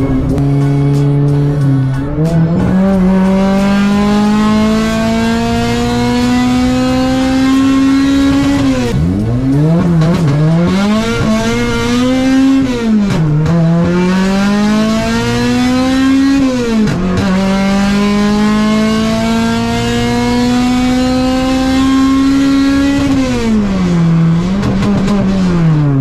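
Honda Civic's G23 VTEC four-cylinder engine accelerating hard through the gears: the engine note climbs steadily, drops sharply at an upshift, and climbs again, three upshifts in all, before the pitch falls near the end as the car slows.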